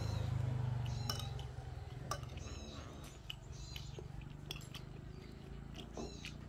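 A metal spoon clinks and scrapes against glass plates in several light, separate clinks about a second apart. Under it is a cat's low purr, strongest in the first second and a half and then fading.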